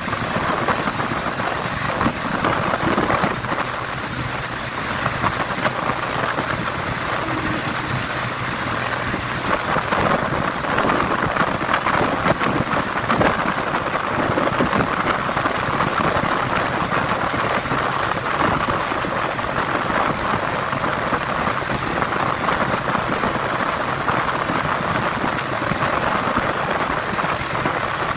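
Honda XRM 125 Fi's single-cylinder engine running steadily at road speed in fourth gear, mostly covered by a constant rush of wind over the microphone.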